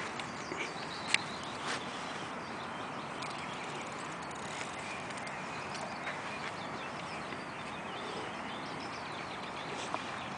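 Faint birdsong over a steady hiss of outdoor background, with one sharp click about a second in and a softer one shortly after.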